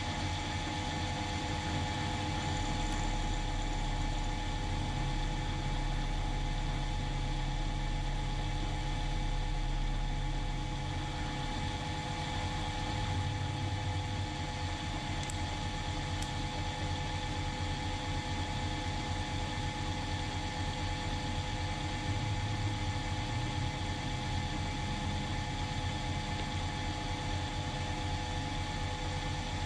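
Mill-drill running steadily: a constant motor hum with a steady whine above it.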